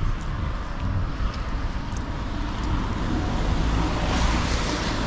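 Wind buffeting the microphone as a steady low rumble under an even outdoor hiss. About four seconds in, a rushing hiss swells up.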